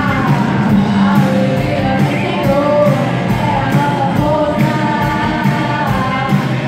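Live gospel worship band performing: a female lead vocalist sings over electric guitars, bass, keyboard and drums keeping a steady beat.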